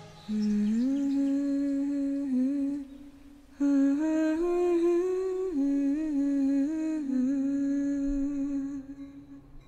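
A single voice humming a slow, wordless melody that slides between notes: a short phrase, a brief breath pause, then a longer phrase that fades out near the end.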